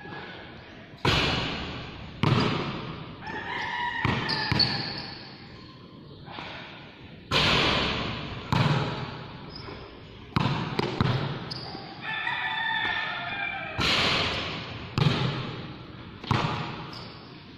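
A basketball bouncing on a hard court floor and hitting the hoop, about a dozen irregular thuds. Each thud has a ringing echo under the large covered court's roof.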